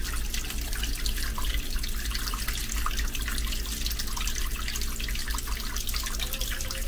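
Water running and dripping from a tap in a passenger railway car, a steady splashing trickle. It is the last of the water draining out of the pipes because the car's water tank has run dry.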